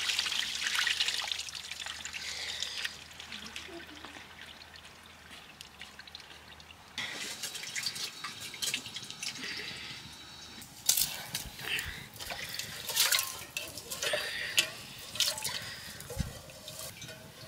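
Water trickling and pouring for the first few seconds, then a quieter stretch. From about seven seconds in, a run of clicks, knocks and splashes of hands and utensils at work.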